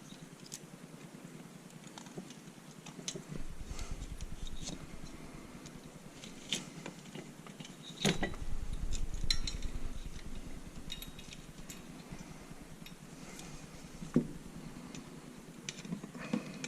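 Scattered light metallic clinks and knocks of small metal parts and tools being handled, with a few dull low rumbles in between.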